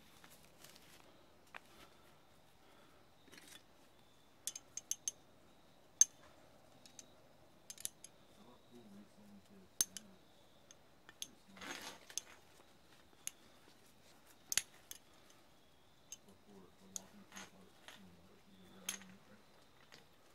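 Metal climbing hardware being handled: carabiners and gear clicking and clinking together in scattered sharp clicks, with a brief rustle about midway.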